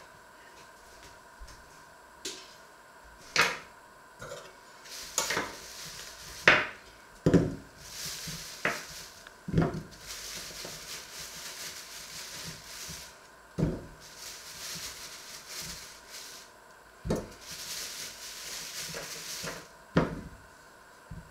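Thin plastic bag crinkling as a hand rummages in it, with sharp knocks every few seconds as items are taken out and set down on the wooden worktop.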